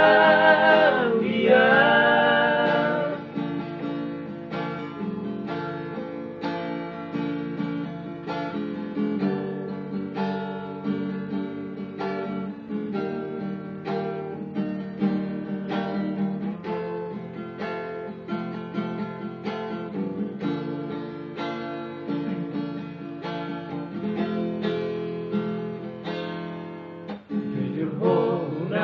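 Acoustic guitar strummed and plucked, with men singing together over it for the first few seconds. The guitar then plays on alone as an instrumental passage, and the singing comes back near the end.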